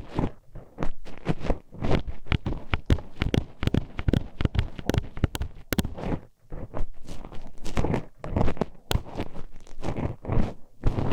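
Metal hairpins poked and scraped inside the ear of a binaural ASMR microphone: close, irregular clacking and knocking, several taps a second, with a brief pause about six seconds in.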